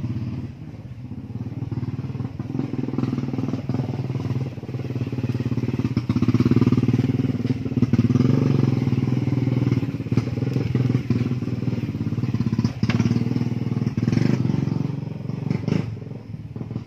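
A small engine running steadily, its level rising and falling. A few brief clicks near the end.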